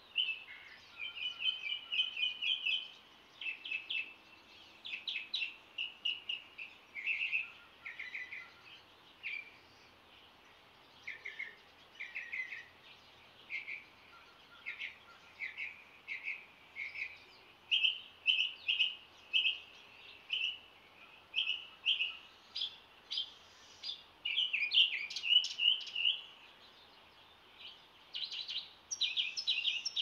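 Dawn chorus of songbirds: a steady stream of short, high chirps and quick trills from several birds, busiest and loudest in the second half.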